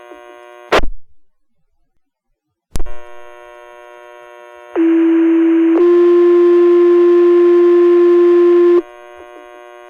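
Fire dispatch two-tone sequential pager alert over the radio channel, a page that sets off the volunteer firefighters' pagers: a low tone for about a second, then a slightly higher tone held for about three seconds. Before it, the radio clicks off, goes silent, then clicks back on with a faint steady hum.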